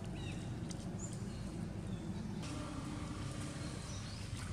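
Outdoor ambience: a steady low rumble with a few faint, short bird chirps. About halfway through, a faint hiss and a faint hum join in.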